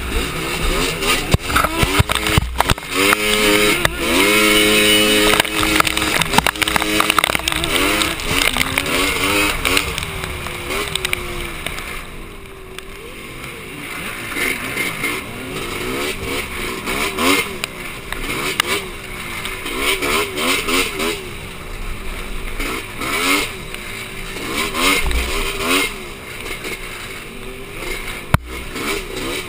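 Polaris Scrambler 400 two-stroke ATV engine revving up and down hard as it is ridden over a rough trail, its pitch rising and falling about once a second, heaviest in the first several seconds and easing off briefly near the middle. Sharp knocks cut in here and there.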